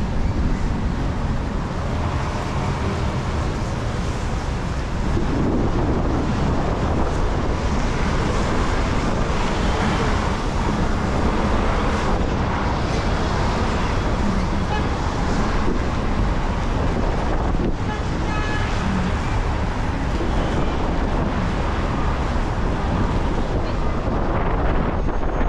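Steady city traffic noise: cross traffic and buses passing through an intersection, with wind buffeting the microphone as a low rumble.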